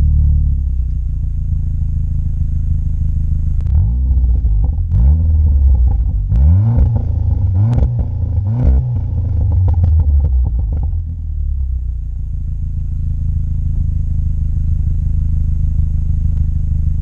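VW Golf 7 GTI Clubsport's 2.0-litre turbocharged four-cylinder idling through a Friedrich Motorsport 76 mm cat-back exhaust with front silencer, blipped several times in quick succession between about four and nine seconds in, each rev rising and dropping straight back, then settling to a steady idle.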